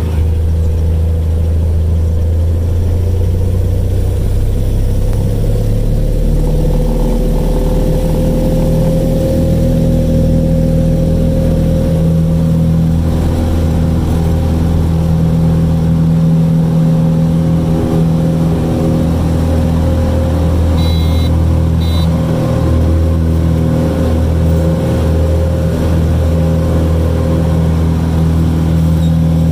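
Light single-engine airplane's piston engine and propeller during the takeoff roll and climb-out, heard from inside the cabin: a loud, steady drone that rises slightly in pitch about seven seconds in, then holds. Two short high beeps sound about two-thirds of the way through.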